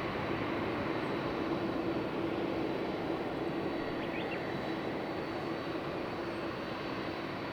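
Boeing 767-300ER's twin jet engines at takeoff thrust: a steady rushing noise with a droning tone, slowly fading as the airliner climbs away.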